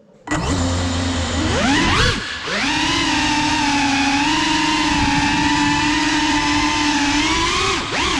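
GEPRC Cinelog35 FPV cinewhoop drone's motors and propellers starting up suddenly and whining as it lifts off from the floor. The pitch rises, dips briefly, holds steady for several seconds, then climbs again near the end as the throttle changes.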